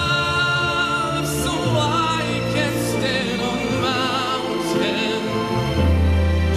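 A man singing solo into a microphone over a backing track, holding long notes with vibrato above sustained bass notes.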